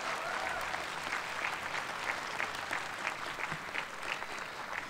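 Audience applauding, a steady spread of many hands clapping with single claps standing out.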